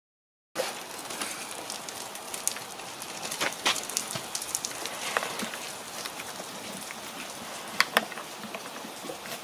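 After a moment of silence, a steady crackling hiss with scattered small clicks, then two sharp clicks in quick succession near the end as hands work at the helmet's chin strap and neck brace.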